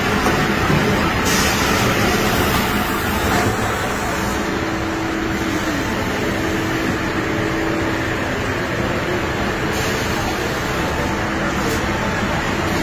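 Steady, loud roar of a commercial kitchen: exhaust hoods and kitchen equipment running, with a faint steady hum.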